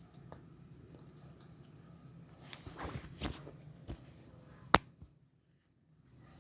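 Soft handling noises, rustles and light scrapes, as ceiling fan parts are worked on by hand, then one sharp click about three-quarters of the way through.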